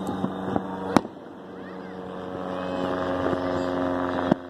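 Steady drone of a small single-engine propeller plane flying overhead, its pitch rising slightly after the middle. Two sharp clicks cut in, about a second in and near the end.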